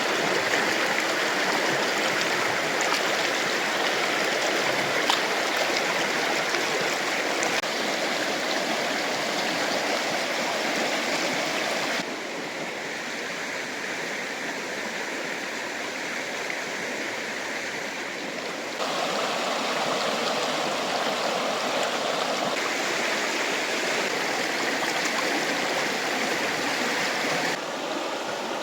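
Fast-flowing river rushing steadily. Its loudness and tone shift abruptly three times along the way.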